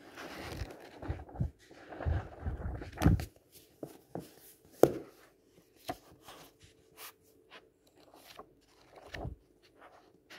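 Pages of a paperback book flipped quickly by hand: a dense fluttering rustle for about the first three seconds, then scattered sharp page snaps and taps, with another short flutter near the end.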